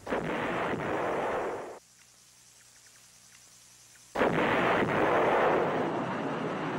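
Two howitzer shots about four seconds apart, each a sudden loud blast; the first dies away after under two seconds, the second's noise carries on to the end.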